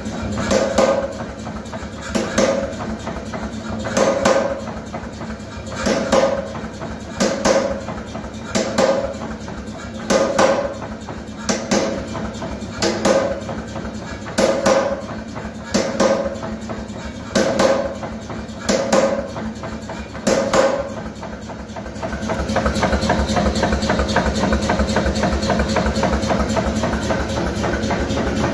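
Power hammer striking single blows onto a swage holding a hot steel bar, about one blow every second and a half, with the machine running between blows. About 22 seconds in the blows stop and a steady mechanical rattle takes over.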